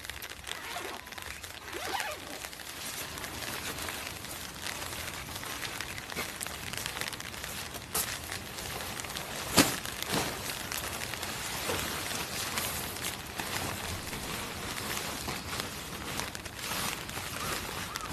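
Heavy canvas tent fabric rustling and crumpling as it is hauled out and spread over gravel, over a steady hiss of light rain. One sharp knock near the middle is the loudest sound.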